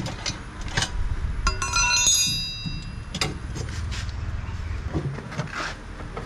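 Metal tools clicking and knocking on a washing machine's gearbox housing as its screws are taken out, with one short ringing metallic clink about two seconds in, over a low background rumble.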